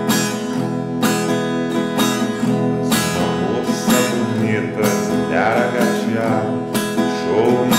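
Acoustic guitar strummed on a held E major chord in a steady swinging down-down-up-up-down pattern, with a strong downstroke about once a second.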